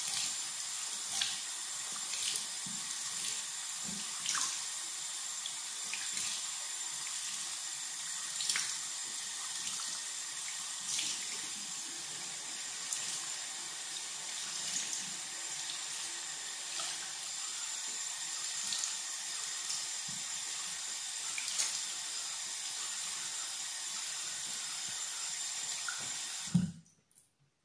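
A bathroom sink tap runs steadily while water is splashed onto a face every second or two during a face wash. The tap is shut off suddenly near the end with a short knock.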